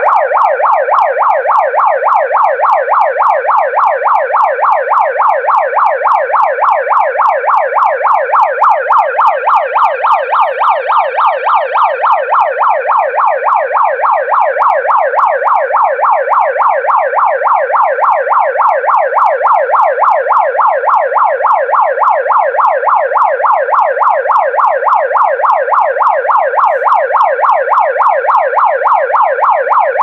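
Pyle PMP30 handheld megaphone's built-in electronic siren running continuously: a fast, evenly repeating warble of rising sweeps, several a second, through the horn.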